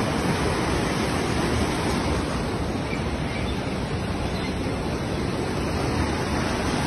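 Muddy floodwater rushing fast along a street: a steady, loud rush of water without a break.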